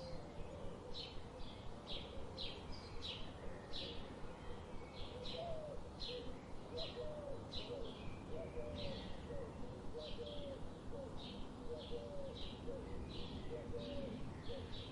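Forest birdsong: one bird repeats short high chirps about twice a second, over softer, lower curving call notes and a steady background hiss.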